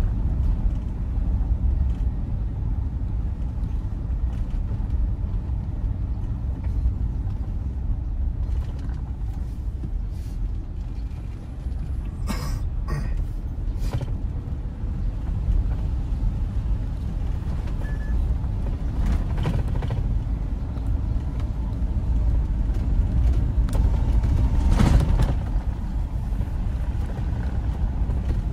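Steady low rumble of a vehicle in motion, with a few short knocks and creaks about twelve seconds in and again near twenty-five seconds.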